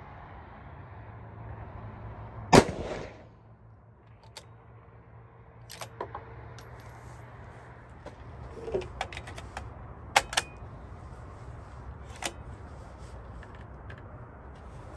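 A single shot from a Victrix Venus T bolt-action rifle in 6 XC about two and a half seconds in, sharp and loud with a short decaying tail. It is followed over the next ten seconds by a scatter of light metallic clicks and clinks.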